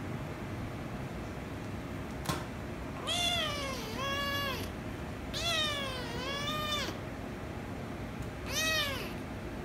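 Young orange-and-white kitten meowing: five high-pitched meows, two pairs and then a single one near the end, each rising and then falling in pitch. A single sharp click comes a couple of seconds before the first meow, over a steady low hum.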